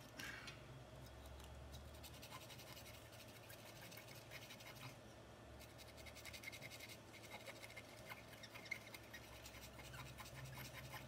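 Faint, rapid scratching of a small pen-shaped brush scrubbing rosin flux residue off a circuit board after soldering, with a brief pause near the middle.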